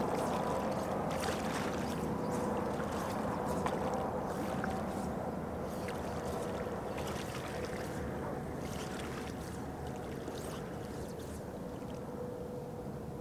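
Wind and small waves lapping on open water, with many small splashy ticks and a faint steady hum underneath.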